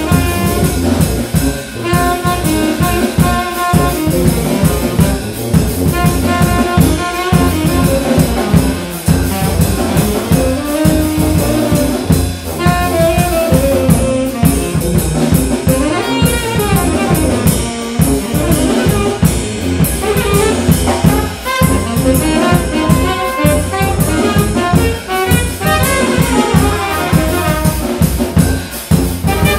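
A small brass band playing a piece: trumpets, trombones, saxophone and tuba over a steady drum-kit beat, with some sliding notes about halfway through.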